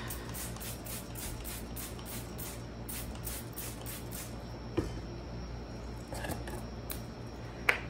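Hand trigger spray bottle squirting in a quick run, about three or four squirts a second, for roughly the first four seconds, with a few more squirts later. A sharp knock near the end.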